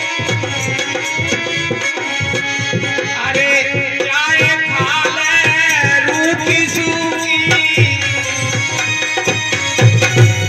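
Live bhajan music: a dholak drum beats a quick rhythm under harmonium and keyboard chords. A wavering, ornamented melody rises over them from about three seconds in to about eight. The drum strokes grow heavier near the end.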